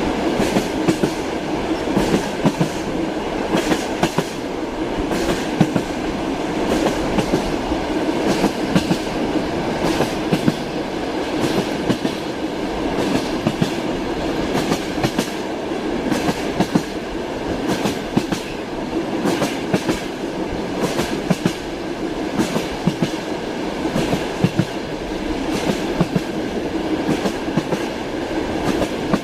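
Train wheels running over the rails: a steady rumble with repeated clickety-clack knocks as the wheels cross the rail joints.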